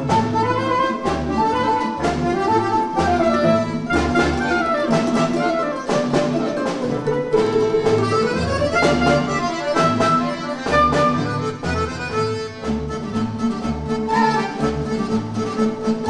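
Folk instrument orchestra playing a melody: plucked lutes and an accordion over a regular pulsing bass, with bowed strings.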